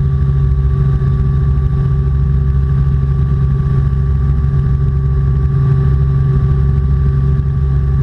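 Robinson R44 Clipper II helicopter's engine and rotors running, a steady drone with a strong low hum and fixed higher tones.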